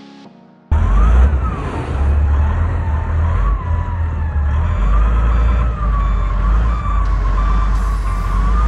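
2003 Volvo L60E wheel loader's diesel engine running as the loader drives past: a deep rumble with a whine on top that wanders up and down in pitch.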